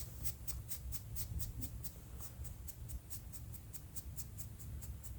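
Rapid, even ticking, about five light ticks a second, over a low steady rumble.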